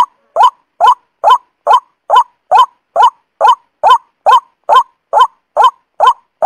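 Lure recording of a truok sawah rice-field bird call: short, honking upward-sweeping notes repeated at an even pace, about two and a half a second, with no pause.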